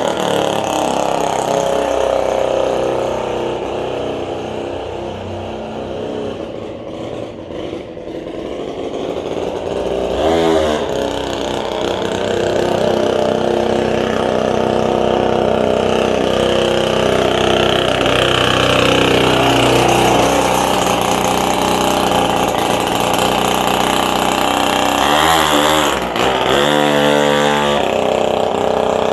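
The 47cc two-stroke engine of a rebuilt Zooma scooter running and revving, its pitch rising and falling with the throttle. It grows quieter and lower around six to eight seconds in, then picks up again, with another rise and fall near the end.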